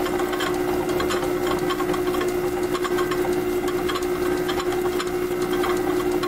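Metal lathe running steadily with a constant hum, while a boring bar cuts inside the tapered mounting socket of a Jacobs 16N drill chuck body.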